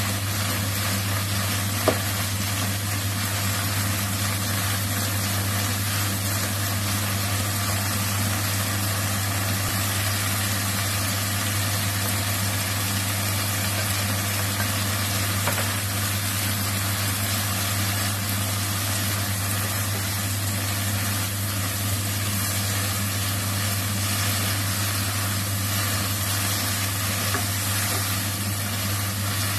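Water spinach sizzling as it is stir-fried in a wok, a steady hiss over a constant low hum, with a sharp click of the spatula against the pan about two seconds in.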